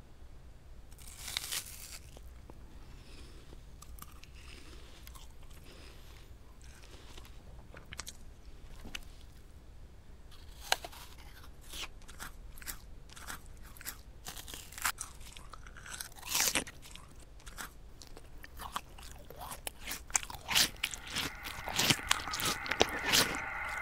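Close-up chewing and crunching of food in a mouth: irregular wet crunches and mouth clicks that come faster and louder toward the end.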